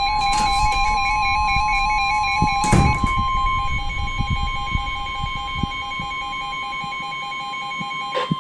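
A steady single-pitch NOAA Weather Radio warning alarm tone (1050 Hz) sounds for about nine seconds, announcing the severe thunderstorm warning that follows. Background music with a repeating electronic melody plays underneath, and a few short clicks come through, the loudest about three seconds in.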